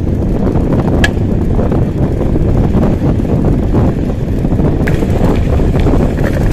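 Mountain bike ride over brick paving and onto a dirt track: wind buffeting the microphone over the rumble of the tyres, with two sharp clicks, about a second in and near the end.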